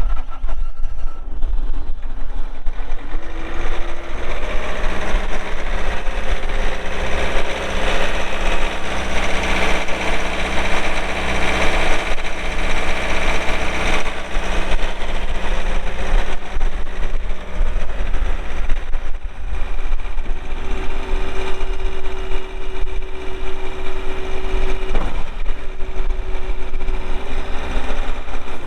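Bobcat S630 skid steer's diesel engine running steadily. Its speed picks up a few seconds in and again after about twenty seconds, with a brief dip near the end.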